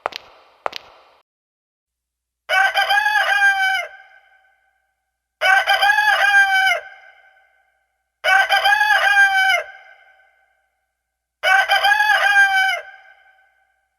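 A rooster crowing four times, each crow about a second and a half long, repeated roughly every three seconds.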